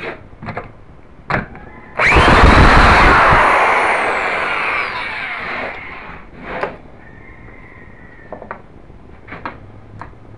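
Ducted fan unit with a K&B .91 glow engine bursting into a loud whir about two seconds in, then winding down over the next few seconds, its pitch falling steadily: a start attempt that doesn't keep running. Short clicks and knocks of handling the test stand come before and after.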